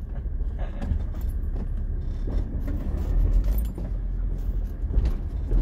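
Ford Transit van's engine running with road noise, heard from inside the cab while driving and changing gear, with light jingling and rattling clicks over the low rumble.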